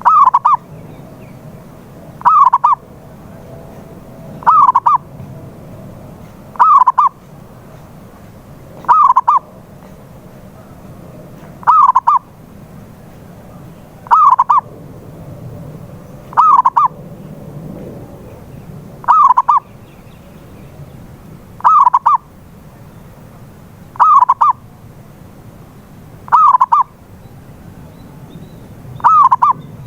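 Zebra dove (perkutut) cooing: a loud, short phrase of two or three quick notes repeated about every two and a half seconds, played as a lure call to set silent doves singing.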